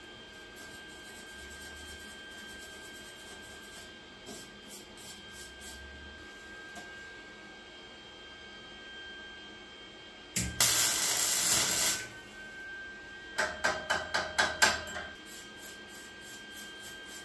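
Flux-core arc welding on cast iron: a single burst of arc crackle lasting about a second and a half, some ten seconds in, then a quick run of about ten short crackling pulses. A faint steady hum lies underneath.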